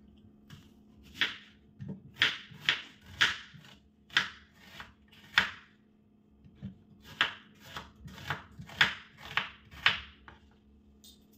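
Kitchen knife slicing through a red onion and striking a wooden cutting board: a series of crisp strokes about two a second, with a short pause just past the middle.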